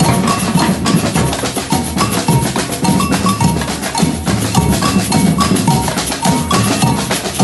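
Batucada percussion ensemble playing samba reggae: massed drums in a steady, dense groove, with short high pitched notes recurring on top of the beat.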